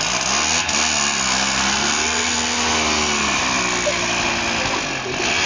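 Wheelie bins rattling as they roll over pavement, a steady clattering noise, with a vehicle engine running underneath whose pitch slowly rises and falls.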